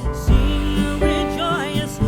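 Music: a song with a singing voice over guitar and a pulsing bass.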